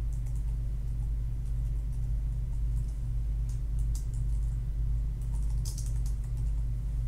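Computer keyboard typing: scattered faint key clicks at an irregular pace, over a steady low hum.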